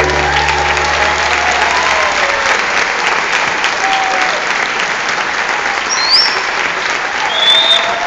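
Audience applauding, with a few shouts from the crowd; the last note of the music fades out over the first second or two.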